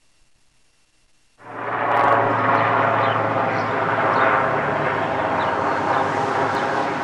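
Near silence, then about a second and a half in a loud, steady train noise with a low hum cuts in suddenly: trains running, with a CSX freight led by two GE Evolution-series diesel locomotives approaching under a Metro overpass.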